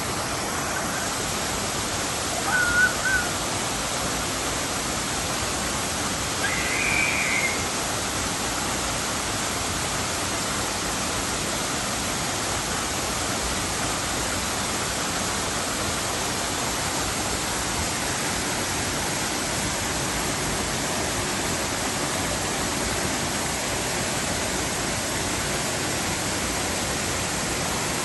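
Waterfall: a steady, even rush of falling water, with two brief faint high calls about three and seven seconds in.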